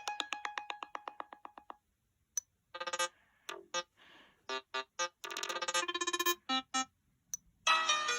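Sony Xperia Z5 Compact phone ringtones played one after another: a fast run of repeated electronic pulses fading out in the first two seconds, then after a short pause a tune of short keyboard-like notes, and a new ringtone starting near the end.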